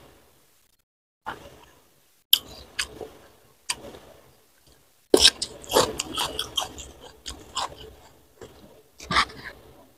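Close-miked eating: a person chewing a handful of rice and side dishes, with sharp crunches and wet mouth clicks in bursts, busiest from about halfway through.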